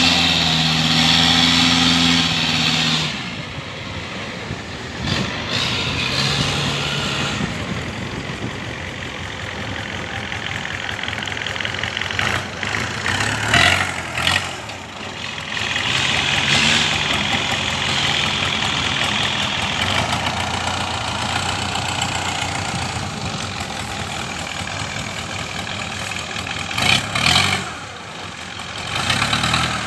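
Kubota DC70 combine harvester's diesel engine running steadily, with brief louder spikes about halfway through and again near the end.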